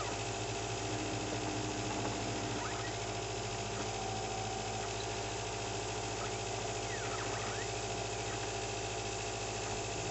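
CNC laser engraver's stepper motors whining as the gantry moves, the pitch dipping and rising again several times as it changes speed and direction, over a steady machine hum.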